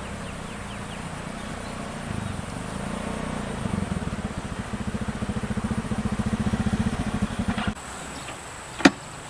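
A small engine running with a steady, even pulsing that grows louder, then cuts off suddenly about three-quarters of the way in. About a second later there is a single sharp click.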